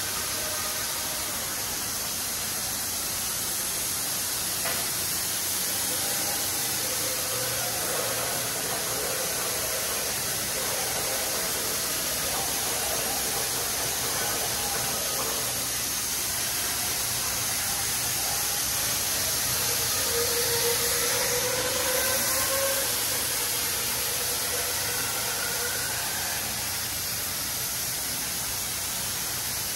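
WashBot Transformer 3XM in-bay automatic car wash gantry spraying water and foam onto a car, a steady hiss of spray hitting the bodywork and floor. A faint whine wavers in and out, most plainly a little past the middle.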